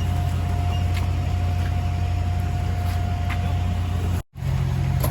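Heavy equipment engines running steadily under load, a deep low drone with a thin steady whine above it. The sound cuts out for an instant about four seconds in, then resumes.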